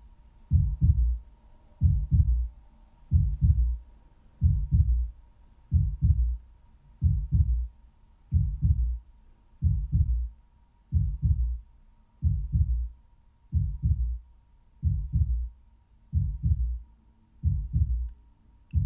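Slow heartbeat, each beat a double lub-dub thump, about every 1.3 seconds, with a faint steady hum beneath.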